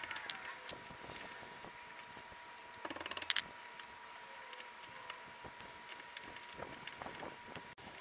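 Small metallic clicks and rattles of a hand tool worked against a brake caliper, with a quick run of clicks about three seconds in.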